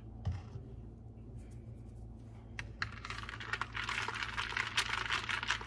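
Reusable plastic cold cup being handled as its lid and straw go on: a soft knock early on, then from about three seconds in a fast, continuous clicking rattle.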